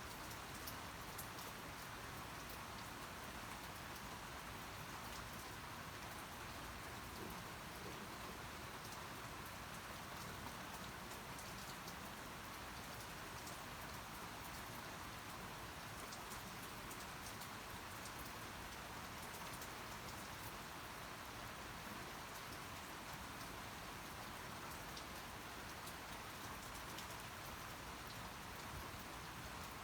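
Steady rain falling, an even hiss of drops with faint scattered ticks of single drops.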